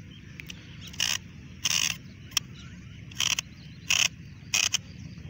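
751-series golf rotor sprinkler's nozzle turret being turned by hand through its newly widened arc, ratcheting in short rasping clicks about once every three-quarters of a second.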